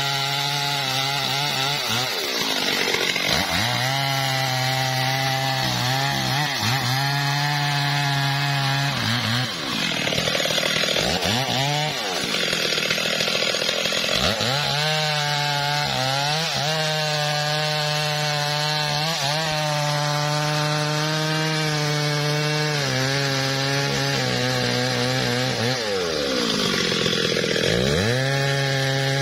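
Stihl MS 382 two-stroke chainsaw making felling cuts in a mahogany trunk. The engine runs at high revs and its pitch dips and climbs back several times as the chain bites into the wood and is eased off.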